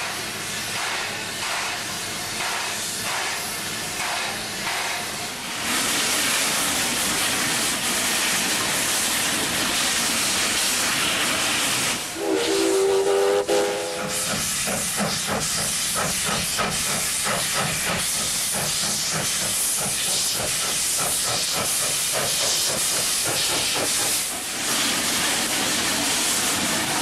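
Steam locomotive working, with regular exhaust chuffs and loud hissing steam. A whistle blast of about two seconds comes about twelve seconds in, and quicker chuffing follows it.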